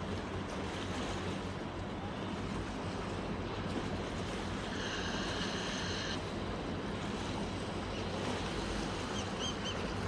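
Steady waterside ambience: waves lapping with wind noise and a low steady hum underneath. A high held tone sounds for about a second halfway through, and two short high chirps come near the end.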